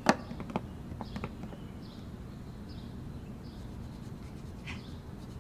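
Faint bird chirps recurring about once a second, with a few light, sharp knocks in the first second and a half.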